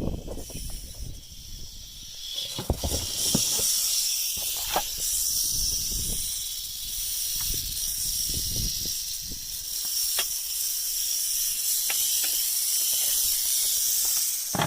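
Rattlesnake rattling its tail: a continuous dry, high-pitched buzz that swells about three seconds in and keeps going, with a few scattered knocks and clicks.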